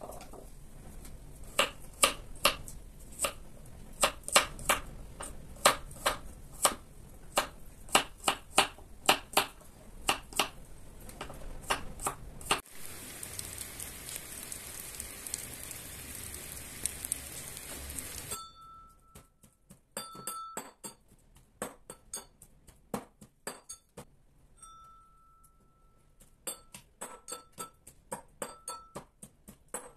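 Pestle pounding garlic and fat in a mortar, with sharp clinking strikes two or three a second. About twelve seconds in, a steady hiss takes over for about six seconds. After that the clinks go on over a much quieter background, some of them ringing on briefly.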